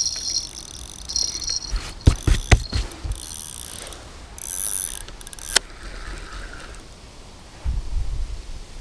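Carp fishing reel clicking and ratcheting while a hooked fish is played on the rod, with a few sharp knocks from handling the rod about two seconds in.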